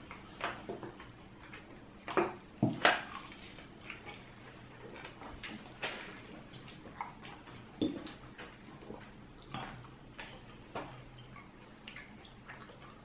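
Close eating sounds of two people eating barbecued chicken and pork with their hands: chewing and mouth clicks with scattered sharp ticks and taps, the loudest cluster about two to three seconds in.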